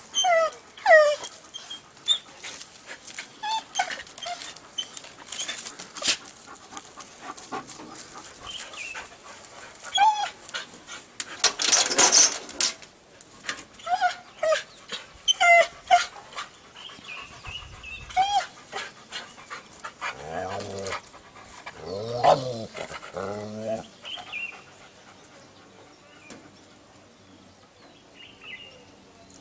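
Dog giving many short, high, falling yelps and whines, with a few deeper barks about two-thirds of the way through.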